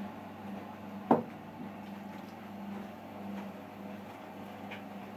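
Liquid being poured from a blender jug into a glass bottle, with one sharp knock about a second in, over a steady low hum.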